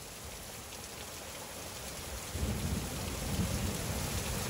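Heavy squall rain pouring down in a steady hiss, with a low rumble coming in about halfway through as the sound grows louder.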